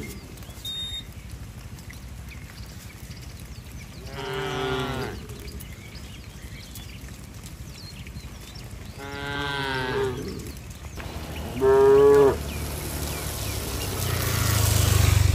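Cattle mooing three times: two long calls about four and nine seconds in, then a shorter, louder one about twelve seconds in. A rush of noise swells near the end.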